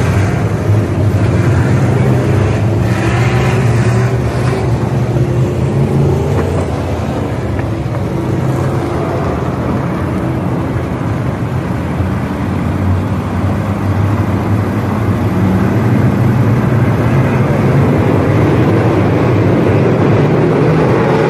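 A pack of street stock race cars running laps on a dirt oval, their engines in a steady drone that fades a little through the middle and swells again near the end as the field comes back around.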